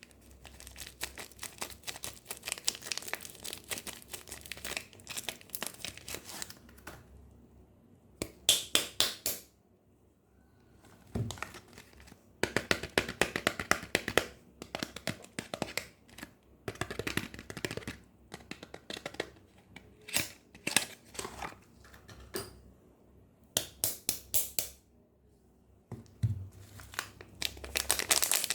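Soap packaging being unwrapped by hand: a crinkly wrapper crumpled and torn in several bursts of fine crackling with short pauses between them.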